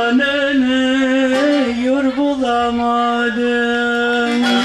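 A singer holding long, drawn-out notes that bend slightly and glide from one pitch to the next, carried over PA loudspeakers.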